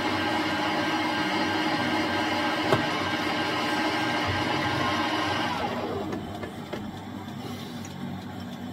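Metal lathe running with its chuck spinning while the tool takes a fine finishing cut on the part: a steady whine of motor and gearing, with one short click a few seconds in. About six seconds in the lathe is switched off and runs down to a stop.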